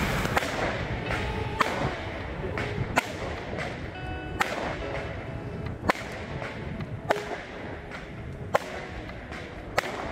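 Fireworks bursting in the air: a string of sharp cracks and bangs, roughly one every second to second and a half, over a steady low background noise.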